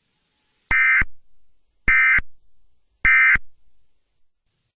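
Emergency Alert System end-of-message data tones: three short, identical, buzzy digital bursts about a second apart, marking the close of the alert.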